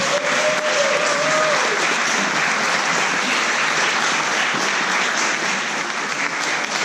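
Audience applauding: many hands clapping at a steady level throughout.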